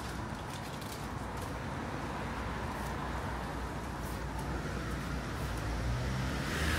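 Street traffic ambience: a steady wash of road noise, with a vehicle engine drawing closer and getting louder near the end.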